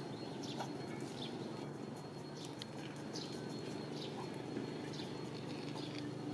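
Outdoor woodland ambience: short, sharp high chirps every second or so, over a steady low hum and a faint, thin, steady whine.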